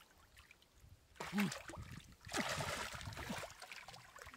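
Water splashing and sloshing, loudest for about a second midway, with boys' voices over it.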